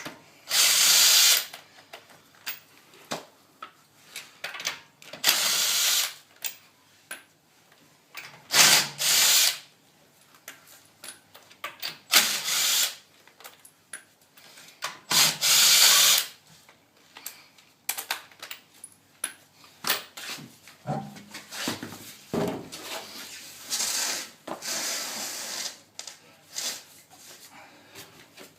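A power tool spinning lug nuts off a car wheel in several separate runs of about a second each, with small metal clicks between them.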